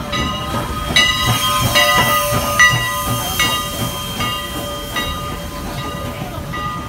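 Steam train in motion: steam hissing, with high-pitched squealing tones that come and go, loudest about one to three seconds in.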